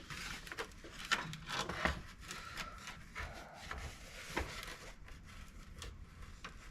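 Irregular light clicks and rubbing scrapes of the plastic valance pieces being handled and fitted together by hand.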